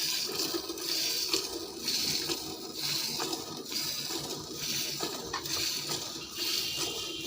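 Liquid splashing and running in uneven repeated pulses, about one to two a second.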